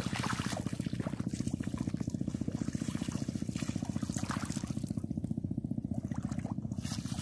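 Feet splashing in ankle-deep seawater while wading across a tidal flat, a few irregular splashes, over a steady low pulsing hum.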